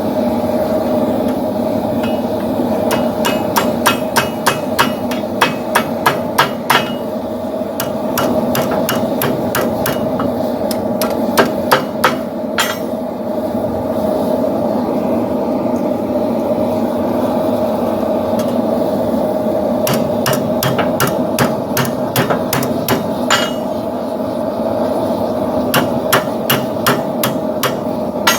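Blacksmith's hammer striking hot steel on an anvil while forging a poleaxe top spike, in runs of sharp ringing blows about two to three a second with pauses between them, over a steady background roar.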